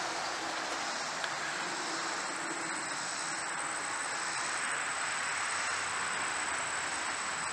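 Beeswax overheated in a stainless steel bowl on an electric burner, sizzling with a steady hiss as it smokes toward its flash point and begins to boil.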